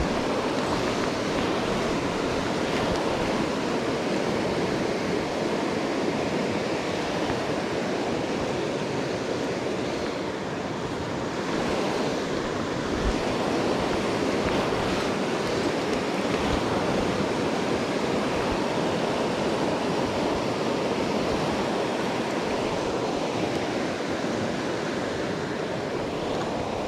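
Fast river water rushing steadily over a rocky bed and a small cascade, an even, unbroken roar of flowing water.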